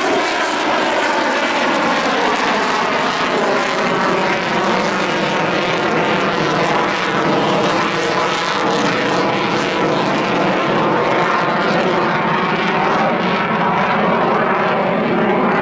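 F-22 Raptor's twin Pratt & Whitney F119 turbofan engines running during a minimum radius turn: a steady, loud rush of jet noise with faint tones that slowly waver in pitch, growing a little duller near the end.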